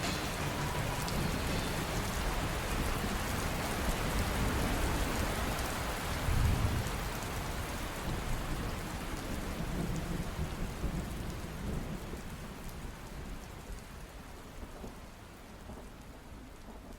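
Rain and thunder sound effect: a steady rain hiss with a low rumble of thunder about six seconds in, slowly fading out.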